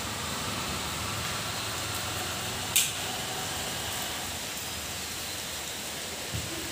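Steady hiss of heavy rain, with one sharp click nearly three seconds in.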